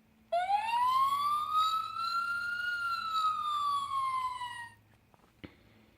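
A fire truck siren sound effect played by a children's sound book: a single slow wail that rises, peaks, then falls, lasting about four and a half seconds. A short click follows about a second later.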